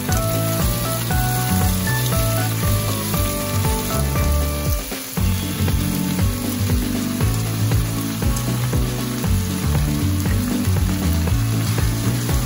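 Pork and cabbage sizzling steadily in a hot frying pan as they are stir-fried with chopsticks, with udon noodles tipped in about halfway. Background music with low, stepped notes plays underneath.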